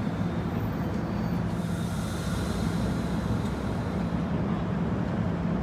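NJ Transit MultiLevel passenger coaches rolling slowly past: a steady low rumble of wheels on rail with a steady low hum underneath.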